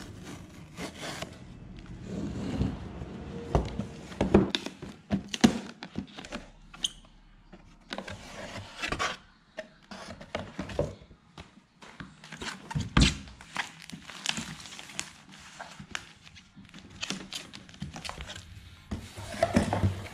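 A cardboard shipping box being opened and emptied by hand: the cardboard flap and insert rubbing and scraping, with handling knocks, a few sharper ones about four, five and thirteen seconds in, as the boxed iPad Pro is slid out.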